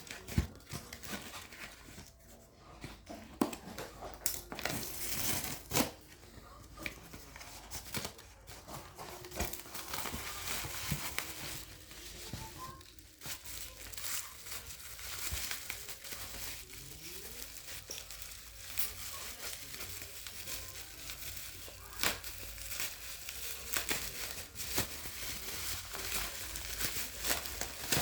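Packaging of a Samsung Galaxy Fit 3 box being handled and unwrapped: crinkling, rustling and tearing with scattered sharp clicks and handling knocks.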